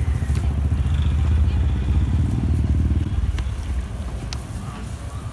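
A motor vehicle's engine runs close by, a low rumble that fades away after about three seconds. A couple of light clicks come near the end.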